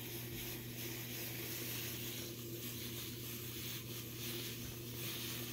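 Liquid nitrogen being poured from its tank into a pan, hissing steadily as it boils off on contact, with a steady low hum underneath.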